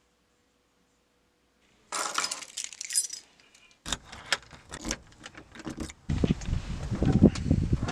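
Keys jangling, then a series of sharp clicks and knocks as a key works a door's deadbolt and knob lock. From about six seconds in there is a loud low rumbling noise.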